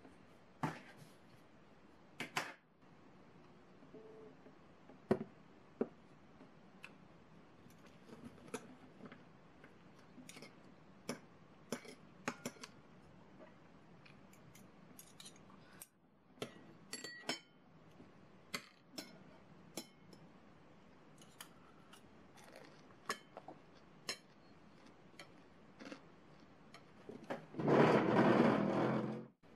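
Metal spoon and fork clinking and scraping against a ceramic plate while eating, as scattered light clicks. Near the end there is a louder burst of noise lasting about a second and a half.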